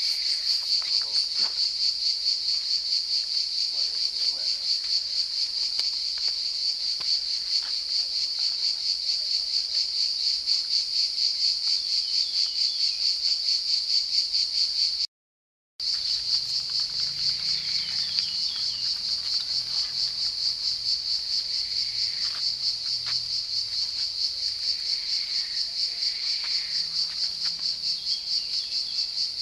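Cicadas singing in a loud, steady chorus with a fast, even pulse. The sound cuts out for under a second about halfway through.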